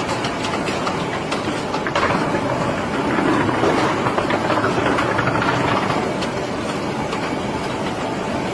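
Steady mechanical running noise with a faint clicking rattle, swelling a little in the middle.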